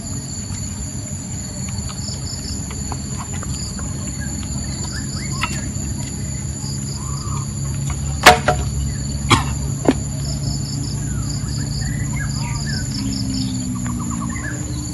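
Insects, crickets or similar, trilling and buzzing steadily at a high pitch, with a few faint bird chirps. Three sharp knocks come a little past the middle, the first the loudest.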